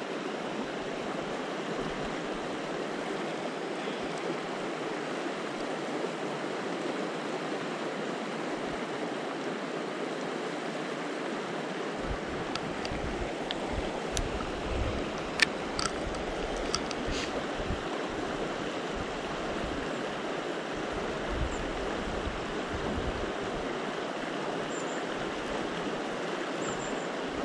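Steady rush of a fast mountain river, with a few sharp clicks about halfway through.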